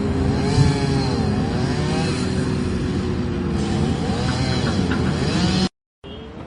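Vehicle engine revving, its pitch rising and falling several times, then cutting off abruptly near the end; a fainter steady hum follows.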